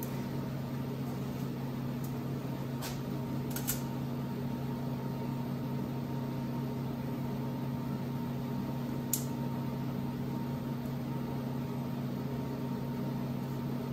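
Steady low machine hum from the shop, with a few light metallic clicks as a metal head gasket is set down and shifted on a steel plate.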